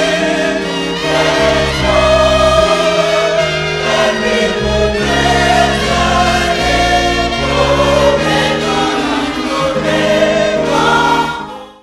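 Gospel choir singing with instrumental backing, fading out in the last second.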